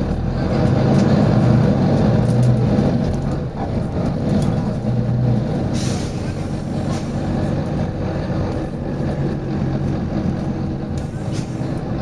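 Volvo B9TL bus's six-cylinder diesel engine running, its drone swelling and easing, with a brief hiss of air from the bus's air system about halfway through.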